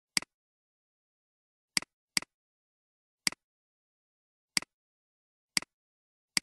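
Computer mouse clicks, about seven, irregularly spaced, each a quick double tick of button press and release, with dead silence between them.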